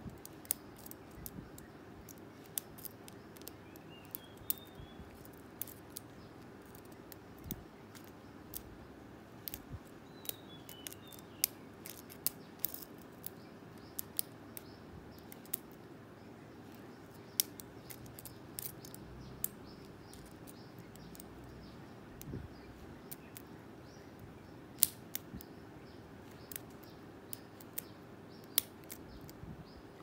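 Lock pick and tension wrench working inside a padlock's keyway: irregular small metallic clicks and ticks as the pick lifts and sets the pins. Underneath runs a steady low hum.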